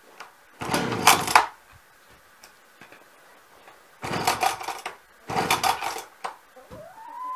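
Chainsaw's recoil starter pulled three times, each pull a rattling whirr of about a second as the engine turns over without catching.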